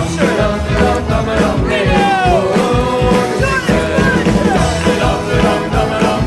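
Background music with a steady beat and a melody line over it.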